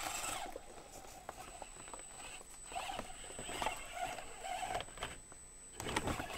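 Axial SCX24 micro RC crawler's small electric motor and gearbox whining in short throttle bursts as it crawls over rocks, with its tires scrabbling and a thin high whine underneath. A brief louder rattle comes near the end.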